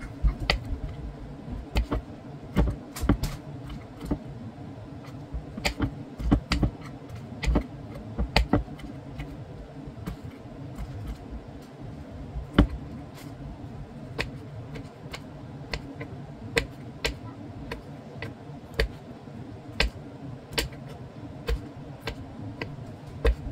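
Small kitchen knife cutting cherry tomatoes on a bamboo cutting board: sharp taps of the blade striking the wood, in quick clusters over the first half and then about one a second.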